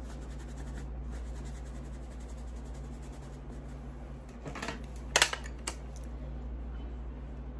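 Steady low room hum, with a few sharp clicks about five seconds in, the loudest two close together, like small hard objects being handled.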